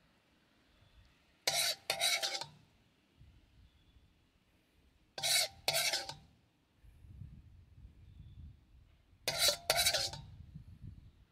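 A metal spoon scraping the bottom of a metal pan to scoop up lemon sauce, three times about four seconds apart, each time as two quick rasping scrapes with a faint metallic ring.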